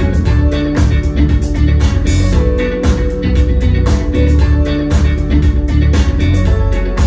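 Recorded music with guitar, heavy bass and a steady drum beat, played loud through Revel M16 loudspeakers driven by a Vincent SP-331 tube-input power amplifier, with no subwoofer.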